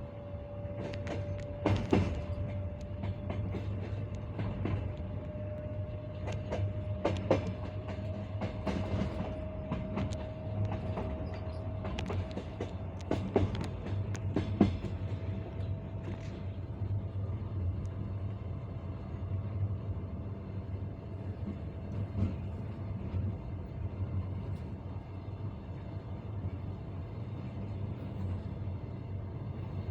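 Passenger coach wheels running over jointed track: a steady low rumble with sharp clacks at the rail joints, which come thickly in the first half and then thin out. A faint steady whine rises slowly in pitch underneath.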